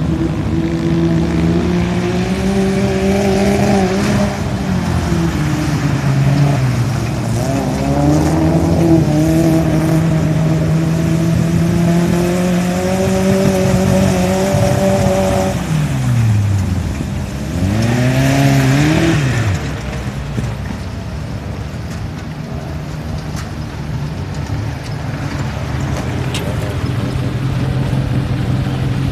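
A small 4x4 jeep's engine driving through a shallow river with water splashing, its revs falling and climbing repeatedly; about two-thirds through the pitch drops right down and climbs back, then it settles to a steadier, lower run.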